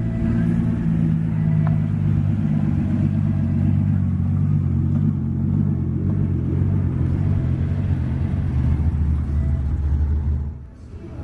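Car engine running at low revs, a deep steady rumble with small shifts in pitch, as a car drives slowly past. The sound drops away suddenly about ten and a half seconds in.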